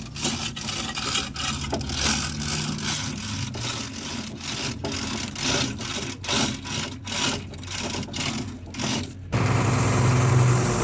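Rough scraping or rubbing strokes, many in a row with short breaks between them; about nine seconds in they give way to a steady low engine-like hum.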